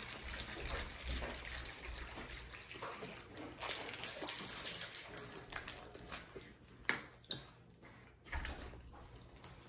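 Sports drink sloshing inside a plastic bottle as it is shaken hard, then a few sharp clicks near the end as the bottle's cap is twisted open.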